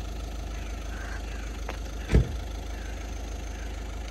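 A steady low engine hum, idling, with a single loud thump about two seconds in.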